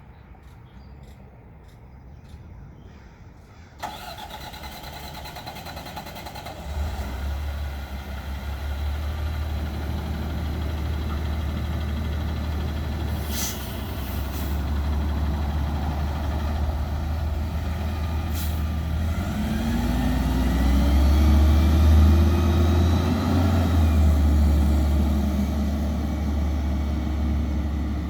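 Garbage truck's diesel engine comes on suddenly about four seconds in and settles into a deep, steady rumble. There are short air hisses twice in the middle, then the engine revs with rising pitch and grows loudest near the end.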